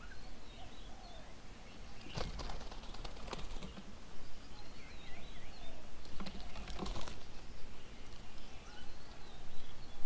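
Birds chirping faintly at an outdoor bird table, with two bursts of quick clicks and rustles, about two seconds in and again about six seconds in.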